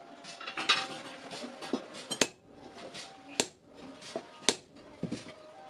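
Metal clinks and knocks from blacksmith work: three sharp strikes about a second apart stand out, among lighter clatter and a brief scrape near the start.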